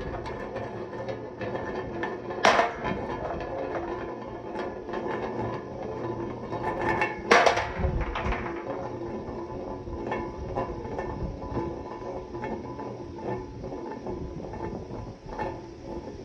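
Marbles rolling down a wooden track, a steady rumble dotted with small clicks as they pass over the joints and turns. There are two loud clacks, about two seconds in and again near the middle.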